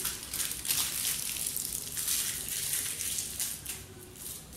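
Aluminium foil crinkling as it is wrapped around a finger, an irregular run of small crackles that thins out near the end.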